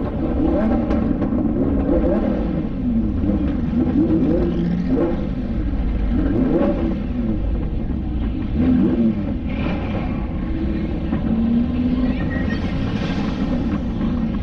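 Lamborghini Huracán's V10 engine running at low speed, its revs rising and falling again and again over a steady low rumble.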